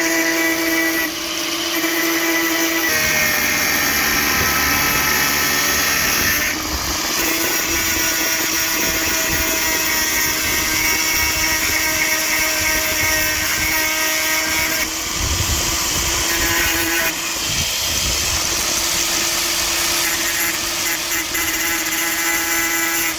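Angle grinder running and grinding steel: a steady motor whine over a harsh grinding hiss, the pitch and load shifting a few times as the disc is worked over the weld, smoothing it down.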